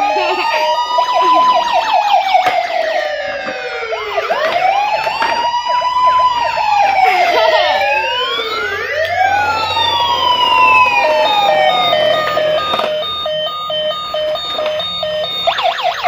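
Electronic siren of a battery-operated toy ambulance, wailing up and down about every four seconds with a second overlapping siren tone. About eleven seconds in it changes to a fast on-off beeping pattern, about two beeps a second.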